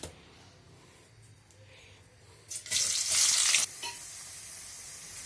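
Chopped onion going into hot oil in a kadai: a sudden loud burst of sizzling about two and a half seconds in, lasting about a second, then settling into a steady, quieter sizzle.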